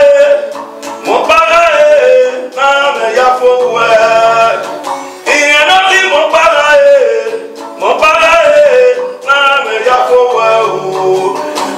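A man singing in long sung phrases with guitar accompaniment.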